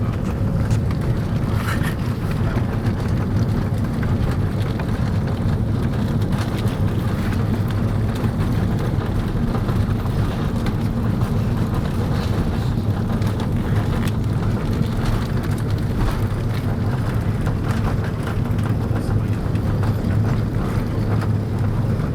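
Airbus A330-300 with Rolls-Royce Trent 700 engines, a steady low rumble of engines and airframe with no change in pitch or level.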